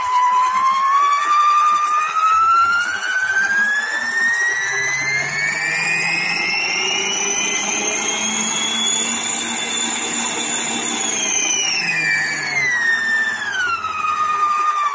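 Seco SG3015 stand mixer's motor running with an empty bowl. Its whine rises steadily in pitch as the speed is turned up and holds at top speed for a few seconds, then falls back in steps as the speed knob is turned down.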